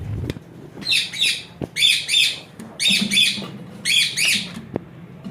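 A parrot squawking repeatedly: four bursts of harsh, rasping calls about a second apart, each burst made of two or three quick squawks.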